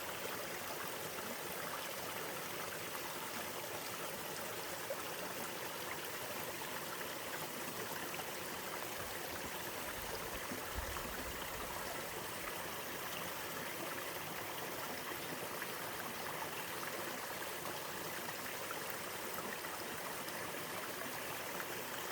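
Mountain valley stream, water rushing and splashing steadily.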